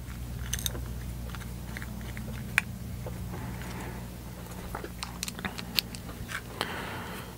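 Small metal screws and washers clicking against an aluminium plate and a hand screwdriver driving screws into a stepper motor, in scattered light clicks and taps, over a steady low hum.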